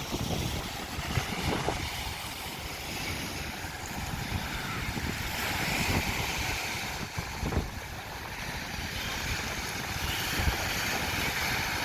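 Sea waves washing in, with strong wind gusting across the microphone.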